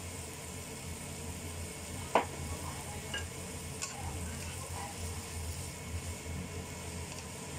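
Noodles and bean sprouts frying in a nonstick wok, sizzling as a spatula stirs and tosses them, over a steady low hum. A single sharp knock about two seconds in, with a few lighter clicks of the spatula after it.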